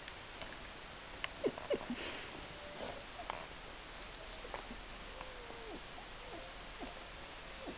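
Newborn Dalmatian puppies squeaking and whimpering in short, thin cries, one longer falling cry a little after the middle, with a few small clicks as they crawl and nuzzle.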